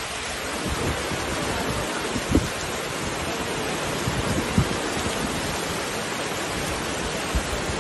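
Heavy rain falling steadily, a dense, even hiss, with a few dull low thumps standing out, the clearest about two and a half and four and a half seconds in.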